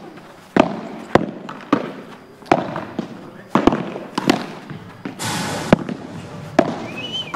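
A padel rally: sharp pops of rackets striking the ball and the ball bouncing, about eight hits spaced roughly half a second to a second apart. A short hissing noise comes about five seconds in.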